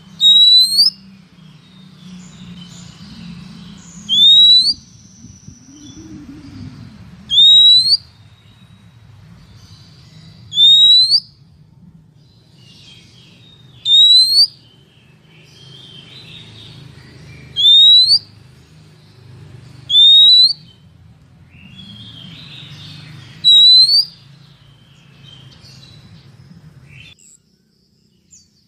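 Female Oriental magpie-robin calling: a loud, single rising whistled note repeated about every three seconds, eight times, with faint softer chirps between. It is the female's call, used to rouse and lure males. A steady low hum lies underneath, and the calling stops shortly before the end.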